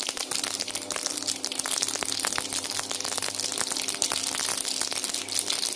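Curry leaves, mustard seeds and cumin spluttering in hot oil in a stainless steel kadhai: a dense, rapid crackle of tiny pops over a frying hiss. This is the sign of oil hot enough for a tempering (tadka).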